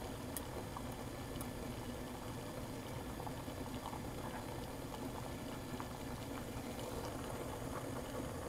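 Water at a rolling boil in a glass beaker over a Bunsen burner, a steady low bubbling with faint scattered ticks.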